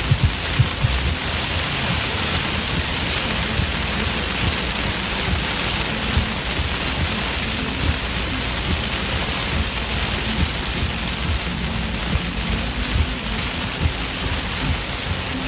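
Heavy rain hitting a moving car's roof and windscreen, heard from inside the cabin: a dense, steady hiss with many small low thuds.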